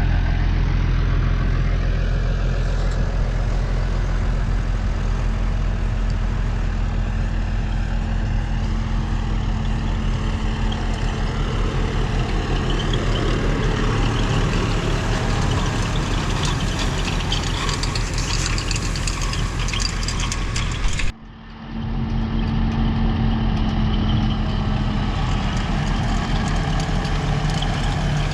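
Tractor engine running steadily, driving a round baler. The sound drops out for a moment about three-quarters of the way through, then carries on.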